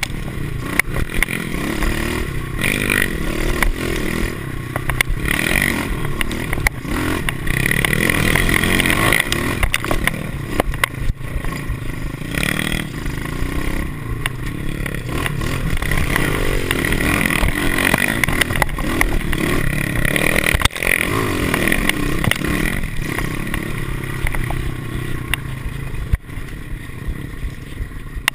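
Pit bike's small four-stroke single-cylinder engine revving up and falling back again and again as it is ridden over a bumpy dirt trail, with rattles and knocks from the bike over the bumps.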